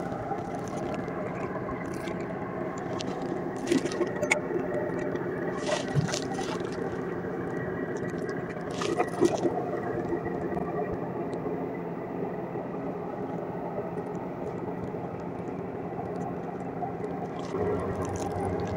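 Scattered clicks and scrapes of hands working bait onto a fishing hook over a tin bait can, heard against a steady low hum made up of several tones.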